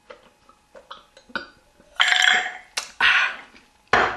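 A man gulping down a Jägerbomb from a glass, with small swallowing clicks, then two loud rough bursts of breath from the throat about two and three seconds in, typical of a gasp or burp after downing a drink. A short sharp knock near the end.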